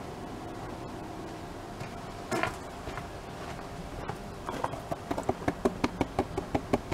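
Water dripping from a plastic gold pan lifted out of a tub of water: a quick run of plinks into the water, about four a second, starting about two-thirds of the way in. Earlier there is a single short knock over a faint steady background hum.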